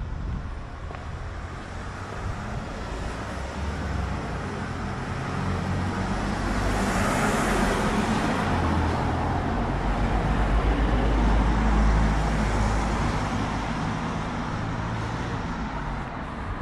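Road traffic: a motor vehicle passes along the street, its tyre and engine noise swelling from about six seconds in to a peak and then fading away.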